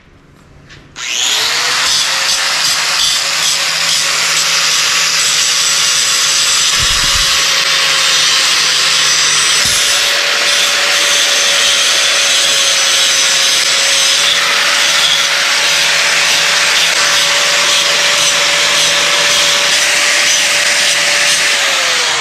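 Handheld angle grinder switched on about a second in, spinning up and then running steadily as its disc grinds the sharp edges off small metal brackets, with a steady hiss of disc on metal. It spins down near the end.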